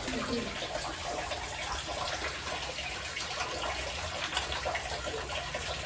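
Steady running, splashing water at a koi pond, a continuous even rush.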